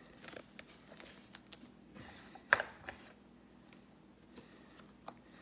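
Light, irregular clicks and taps of trading cards being handled and shuffled through a pack, the sharpest about two and a half seconds in.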